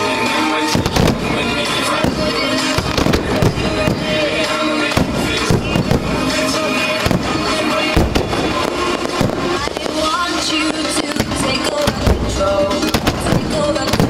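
Aerial firework shells bursting in quick, irregular succession, a dense run of bangs and crackles over steady music that accompanies the pyromusical display.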